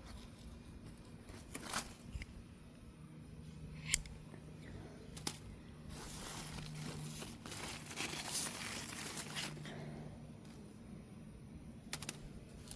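Rustling and crinkling with a few sharp clicks, the rustling loudest for a few seconds past the middle, over a faint steady low hum.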